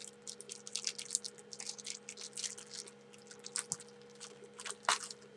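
Plastic wrapping on a tightly wrapped HeroClix miniature being pulled open: faint, irregular crinkling and crackling over a low steady hum.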